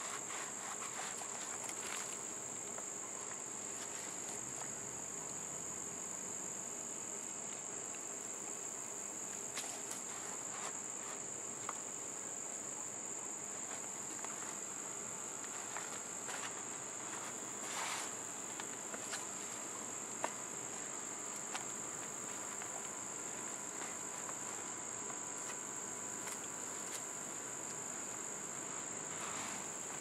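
A steady, high-pitched trill of crickets, with faint scattered rustles and scrapes of gloved hands digging through potting soil in a plastic container.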